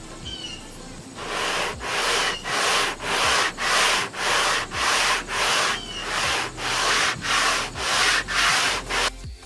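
Hand sanding cured primer on a car's quarter panel with 220-grit sandpaper: even back-and-forth strokes, about two a second, starting about a second in and stopping just before the end.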